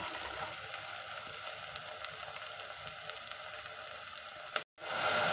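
Chopped onions sizzling in butter in an aluminium pressure cooker, stirred with a slotted steel spoon, with faint clicks of the spoon against the pot. Near the end the sound drops out for an instant and comes back louder.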